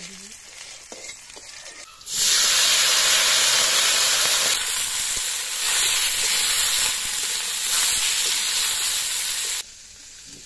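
Cauliflower florets, onions and chillies frying in hot oil in an iron kadai, stirred with a metal spatula. Light scraping at first, then about two seconds in a loud, steady sizzle starts suddenly and cuts off abruptly near the end.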